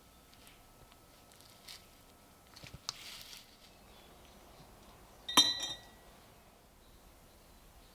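A metal object clinks once against a hard surface, ringing briefly, after a few soft scrapes and rustles of handling.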